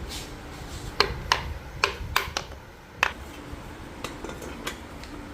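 Metal tools and engine parts clinking and knocking against each other during engine reassembly: about six sharp clinks in the first three seconds, then a few fainter ones.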